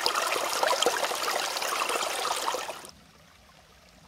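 Small stream splashing and trickling over rocks in a little cascade, heard close up. It cuts off abruptly about three seconds in, leaving only a faint hush.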